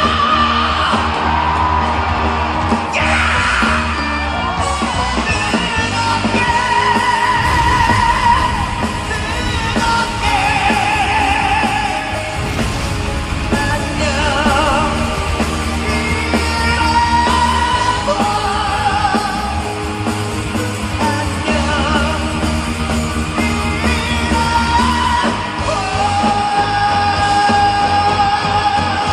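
Live rock band playing while a male singer belts long, sustained high notes with a wide vibrato, shouted at full voice.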